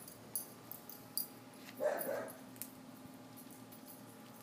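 A Shiba Inu–American Eskimo mix puppy gives one short, two-part bark about two seconds in, over faint high clicks scattered through.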